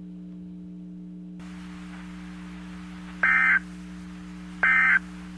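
Two short, loud bursts of electronic data tone, about a second apart, over a steady low hum and hiss; they have the pattern of EAS end-of-message SAME data bursts closing an emergency alert broadcast.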